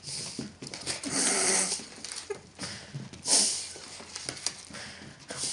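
A dachshund sniffing and licking right at a person's face, close to the microphone, in breathy bursts: a long one about a second in and a shorter one a little past three seconds.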